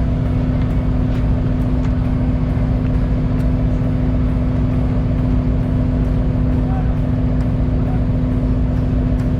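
A fishing boat's engine running steadily, an even low drone with a faint regular ticking over it.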